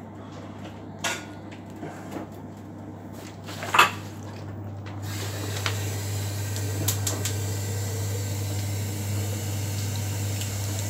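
LG direct-drive washing machine running a 60 °C cottons wash: a steady low hum that grows louder about five seconds in, with a few sharp knocks and clicks, the loudest about four seconds in.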